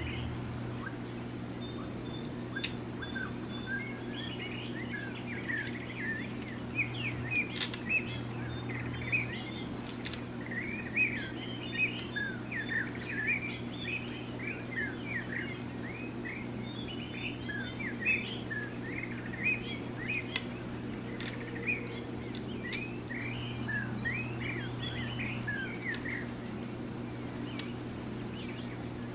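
Small birds chirping and twittering throughout in quick, overlapping short calls, over a steady low hum.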